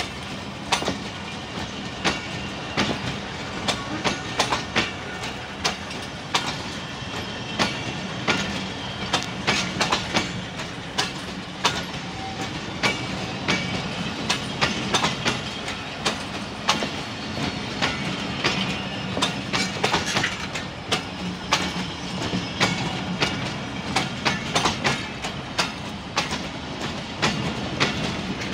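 Pakistan Railways passenger coaches rolling past as the train pulls out of a station. Their wheels clatter over the rail joints in an irregular clickety-clack over a steady rolling rumble.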